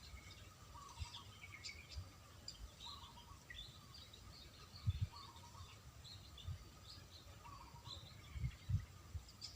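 Several birds chirping and calling in short, scattered notes, over a faint steady background hum, with a few soft low thumps about five seconds in and near the end.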